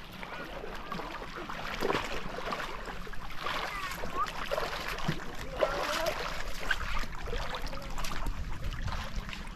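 Sea water splashing and sloshing with irregular knocks, and faint distant voices.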